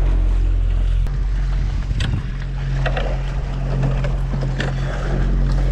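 Sailboat under way at sea: a steady low hum with water rushing and splashing along the hull, a few sharper splashes from about two seconds in.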